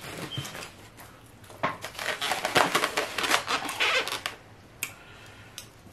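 Polystyrene foam takeout clamshell being handled and moved, its foam giving a dense run of short clicks and scrapes, heaviest in the middle couple of seconds.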